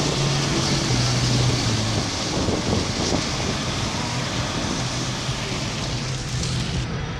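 Car driving on a wet road, heard from inside: steady road and wind noise, with a low hum that fades after about two seconds.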